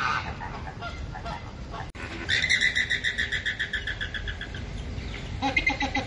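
A flock of flamingos calling. Softer chatter gives way, about two seconds in, to a loud run of rapid repeated high calls lasting about two seconds, followed by lower repeated calls near the end.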